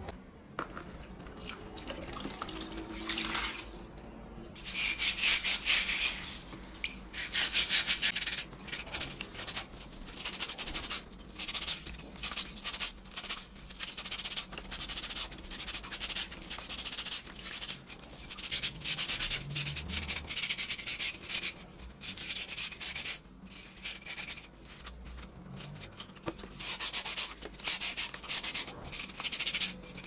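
Green abrasive scouring pad scrubbing a wet, rusty metal coffee-grinder part in bursts of quick back-and-forth strokes, with short pauses between them.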